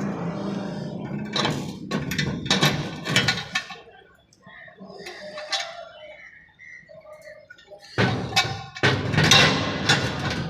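Sharp metal knocks and clanks over a steady low hum, quieter for a few seconds in the middle, with a burst of louder knocks near the end.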